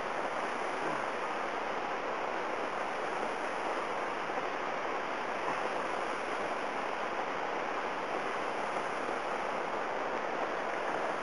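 Heavy tropical-storm rain pouring down, a steady even hiss that does not let up.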